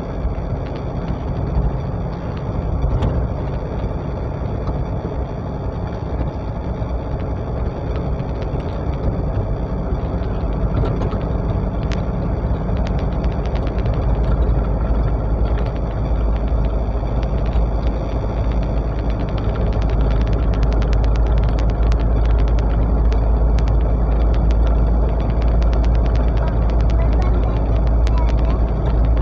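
Road and engine noise inside a moving vehicle's cabin: a steady low rumble that grows louder past the middle, with a run of light rattling ticks later on.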